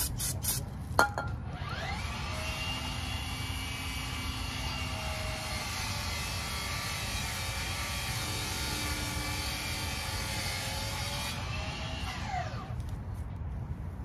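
A few short hisses of spray cleaner at the start, then a small motor spins up with a rising whine about two seconds in. It runs steadily for about ten seconds and winds down near the end.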